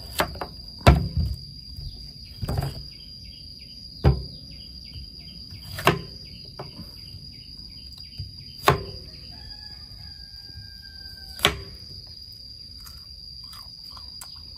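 Kitchen knife chopping through a peeled fresh bamboo shoot onto a wooden cutting board: a sharp knock every one to three seconds, about seven in all. A steady high insect drone runs underneath.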